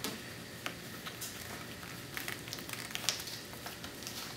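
A tablet case being handled: faint, scattered light taps and clicks.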